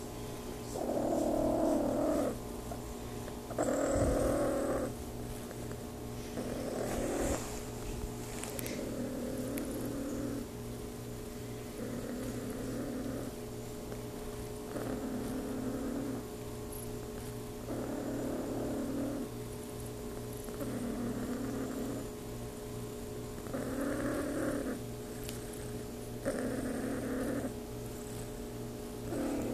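Ragamuffin cat purring steadily while being petted, the purr swelling and easing with each breath about every two and a half seconds.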